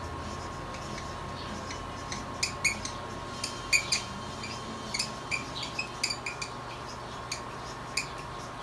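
Marker squeaking in short, quick strokes on a glossy chart while words are written, starting about two seconds in.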